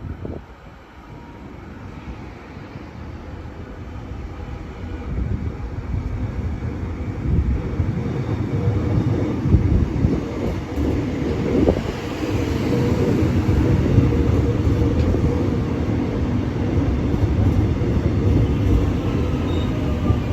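An X'Trapolis electric suburban train approaching on the rails, its low rumble growing louder over the first several seconds and then holding steady.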